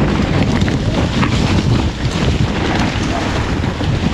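Wind buffeting the camera microphone as a mountain bike is ridden fast down a loam trail, with scattered clicks and rattles from the bike and tyres on the ground.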